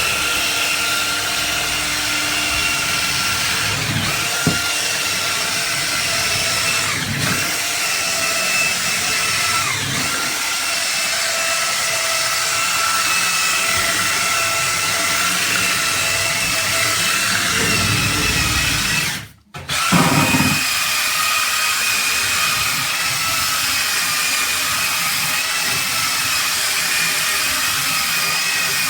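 KIMO 12-volt cordless power tool running steadily with a high motor whine while cleaning, with a few low swishes on top. It stops for a moment about two-thirds of the way through and starts again.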